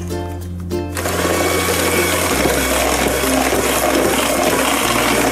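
Electric hand mixer switching on about a second in and running steadily, its beaters whirring through chocolate cake batter as an egg is beaten in. Light ukulele music plays before the mixer starts.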